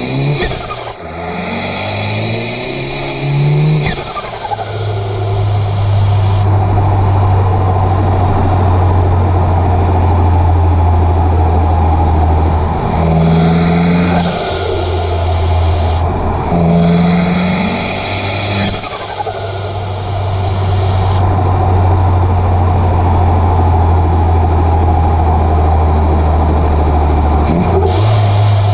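Citroën DS3 Racing's turbocharged 1.6 THP four-cylinder engine, fitted with a Mamba K04 hybrid turbo, running. It rises in revs in short pulls near the start and again about halfway, with turbo hiss and a falling whistle after each, and holds steady revs for long stretches in between.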